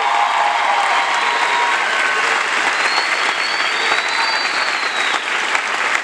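Theatre audience applauding steadily, with a few voices cheering over the clapping.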